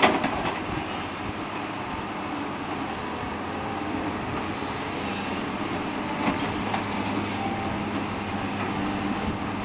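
Distant diesel earth-moving machinery, a bulldozer and excavators, running in a cutting as a steady low drone under outdoor background noise. A run of quick high chirps comes about halfway through.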